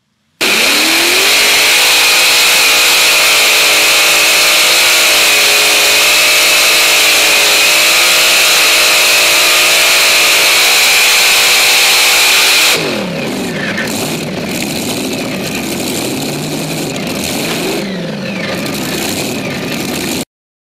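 Multiple supercharged Hemi V8 engines of a four-engine tractor-pulling machine, heard onboard: they rev up sharply and hold a loud, steady full-throttle note for about twelve seconds. Then the throttle comes off and the engines drop to a quieter, uneven sound, with revs rising and falling, until the sound cuts off abruptly near the end.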